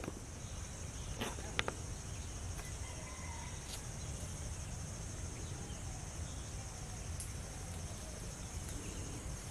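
Outdoor ambience dominated by a steady high-pitched insect buzz, over a faint low rumble, with a couple of faint clicks about a second and a half in.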